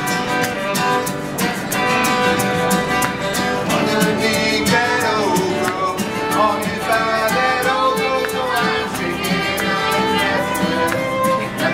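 Acoustic folk band playing live: a fiddle line over strummed guitar keeping a steady rhythm.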